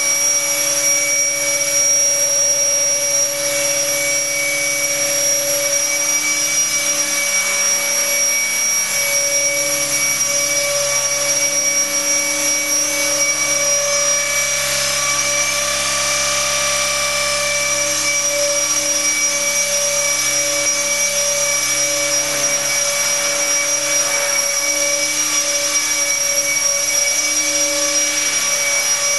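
Align T-Rex 600 electric RC helicopter hovering: its electric motor and drive whine steadily at a constant pitch over the whir of the rotor blades.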